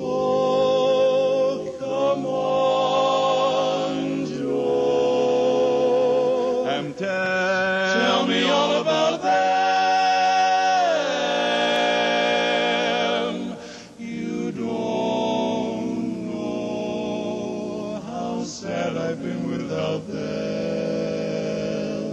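Barbershop quartet of four men singing a cappella in close harmony, holding long chords with vibrato that shift several times, with brief breaks between phrases.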